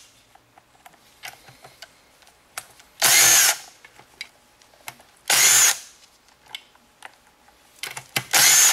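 Cordless power driver spinning bolts out of a manual transmission's aluminium case in three short bursts, each about half a second long and two to three seconds apart, with small metallic clicks in between.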